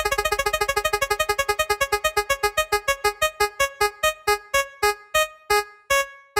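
An electronic keyboard-like note repeated over and over, slowing steadily from a fast patter to about two notes a second, like a jingle winding down.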